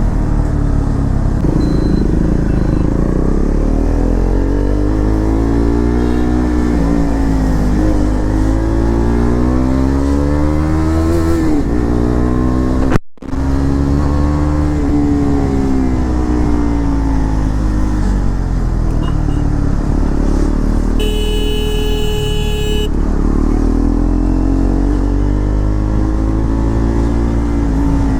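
KTM Duke 390's single-cylinder engine through a freshly fitted full-system aftermarket exhaust, ridden on the road, its pitch rising and falling again and again with throttle and gear changes. The sound cuts out briefly about halfway, and later a horn sounds for about two seconds.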